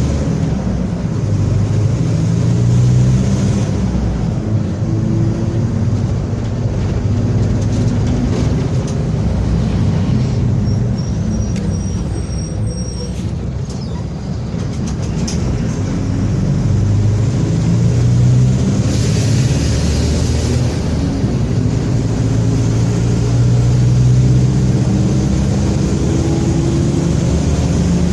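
Mercedes-Benz OF-1721 city bus's diesel engine running under way, its pitch rising and falling as it pulls and eases off, with the differential growling. A short hiss about two-thirds of the way through.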